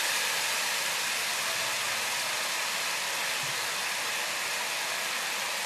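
Julienned potatoes frying in hot oil in a kadai, a steady, even sizzle.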